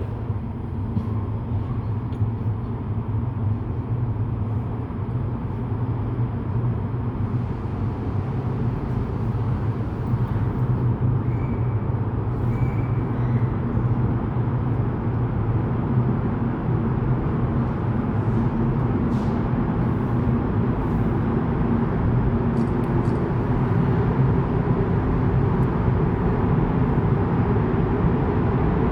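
Strong artificial wind from a wind-simulation machine: a steady, deep rushing noise that slowly grows stronger.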